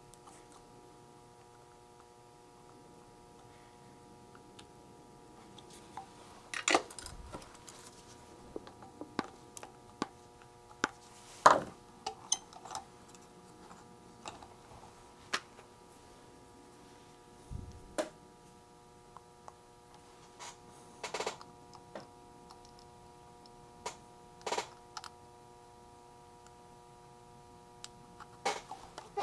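Irregular sharp clicks and taps of small parts and hand tools being handled on an electronics workbench while a component kit is assembled, about a dozen spread unevenly, the loudest near the middle. Under them runs a faint steady hum made of several tones.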